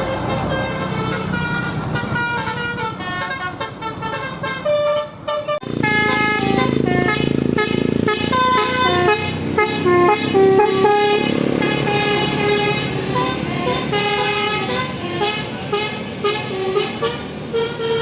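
Bus basuri telolet horn, a musical air horn, playing a quick tune of stepping notes. About five and a half seconds in the sound cuts sharply to a louder, fuller stretch, with the horn tune going on over a low rumble.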